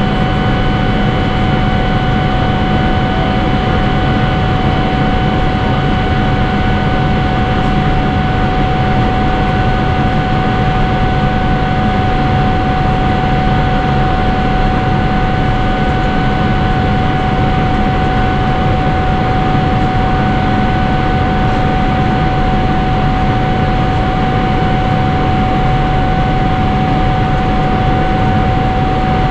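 Inside the cabin of a Boeing 777-300ER climbing after takeoff, its GE90-115B turbofan engines give a steady, even rush of noise with a clear whine held on one pitch, unchanging throughout.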